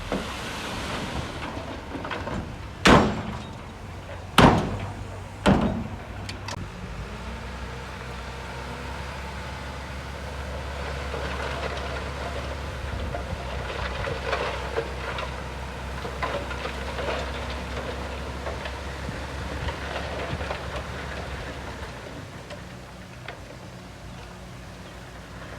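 Diesel engine of heavy earthmoving machinery running, with three loud bangs a second or so apart in the first six seconds. After them comes a steady low engine drone that drops away near the end.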